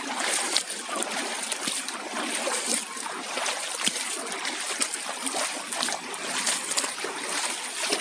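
Shallow stream rushing over rocks, with irregular splashes from feet wading through the water.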